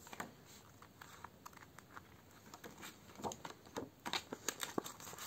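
Faint rustling and light clicks of plastic binder sleeves, paper and banknotes being handled, with a cluster of louder crinkles about three to four seconds in.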